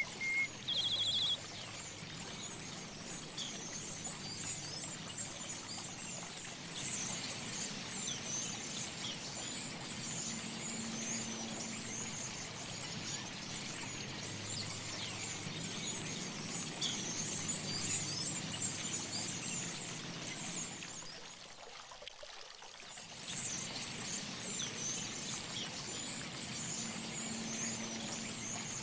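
Fountain water trickling and pouring into a shallow stone pool, with birds calling in high, scratchy notes over it and a few short clear whistles right at the start. The water briefly drops away about 21 seconds in, then returns.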